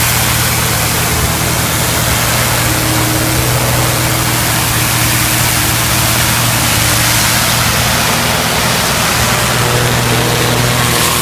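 Hot-water pressure washer running with a turbo lance: a steady hiss of the high-pressure spray over the steady hum of the washer's engine and pump. A few higher steady tones join in near the end.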